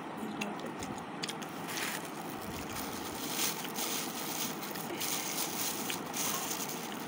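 Steady background hiss with a few short bursts of rustling spread through it.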